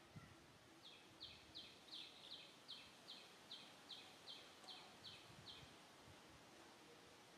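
A bird calling a faint series of about a dozen short, high notes, roughly three a second, starting about a second in and stopping a little over halfway through.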